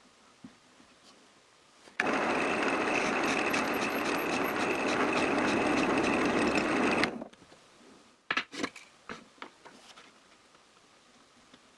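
Drill press running and boring a 6 mm hole into the end grain of a short pine dowel for about five seconds, starting suddenly about two seconds in and cutting off abruptly. A few light clicks and knocks follow as the work is handled.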